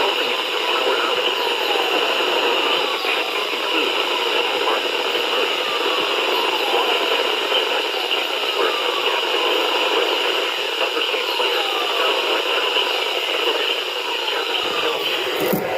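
Steady radio static hiss with faint falling whistles every second or two, cutting off abruptly just before the end.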